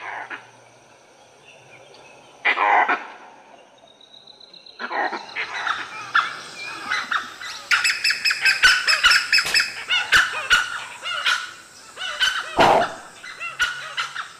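Langur alarm calls: two loud, harsh barks in the first three seconds. From about five seconds in, a dense chorus of high-pitched yelps and whistles joins them, from a dhole pack mobbing a leopard it has treed, with another loud bark near the end.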